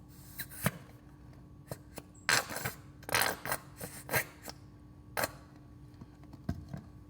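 Handling noises from working slime and lotion in a bowl: a run of short, irregular scrapes and squishes with a few sharp clicks.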